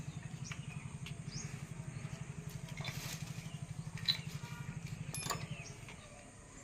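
A motorcycle engine idling with a fast, even pulse, dying away near the end, with a few light metallic clicks of hand tools on engine parts.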